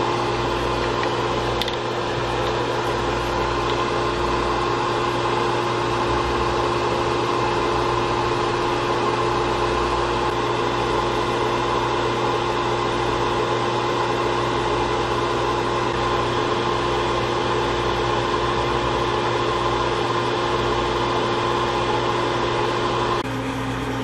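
Steady whirring of a small electric fan or blower motor over a constant hum, which steps down to a lower hum near the end.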